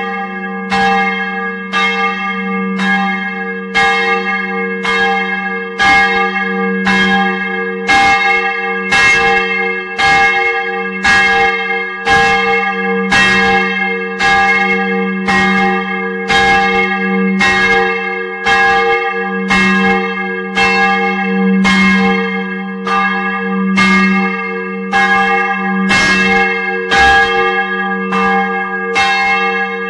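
Church bells swinging and ringing, heard up close inside the belfry. Clapper strikes come about once a second over a deep hum that lingers between them.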